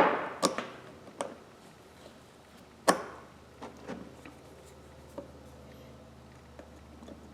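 Handling noise from tools and small parts: a few separate sharp knocks and clicks, the loudest about three seconds in, followed by several faint ticks.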